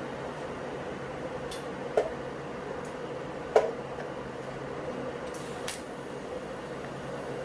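Steady hum of a running fan, with two sharp metallic clinks about two seconds and three and a half seconds in, the second the louder, and a fainter tap near the end, as metal gear is handled at the welding bench.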